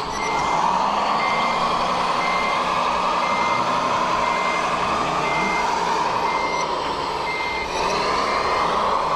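Reversing beeper of a radio-control scale truck, beeping about once a second, over the steady whine of its running drive.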